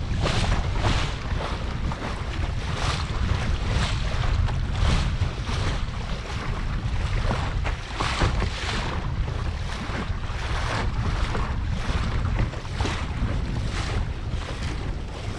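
Lake chop splashing and slapping against the hull of a Laser Pico sailing dinghy under way, in repeated washes one or two a second, over a steady low rumble of wind on the microphone.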